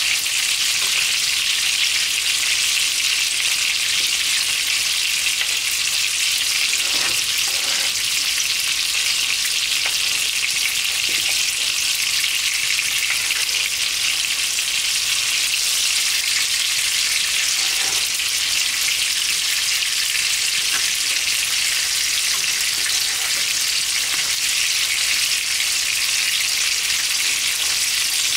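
Ground-beef mini seekh kebabs sizzling as they fry in a pan: a steady, even hiss with a few faint crackles.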